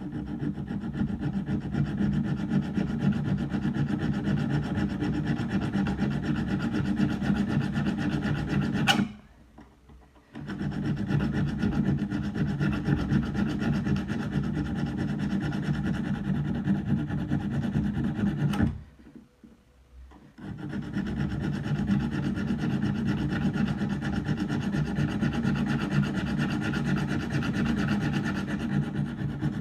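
Steel knife blade being ground against an abrasive stone: a continuous rasping scrape. It stops twice for about a second and a half, a sharp click marking each stop.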